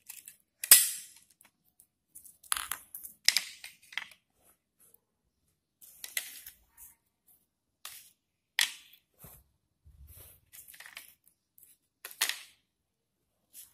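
Clicks, knocks and scrapes from handling a digital multimeter's opened plastic case and pulling out its 9-volt battery: a string of short, irregular sounds, the loudest about a second in.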